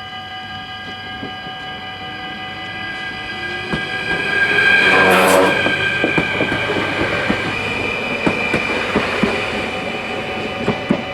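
Level-crossing bells ringing steadily while a Stadler FLIRT electric multiple unit passes over the crossing, loudest about five seconds in. Before the pass a rising motor whine is heard, and after it the wheels clack over the rail joints.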